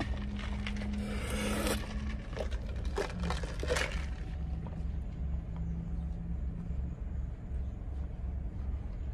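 Steady low rumble and hum of a car heard from inside the cabin. The phone rubs and scrapes against clothing in the first few seconds.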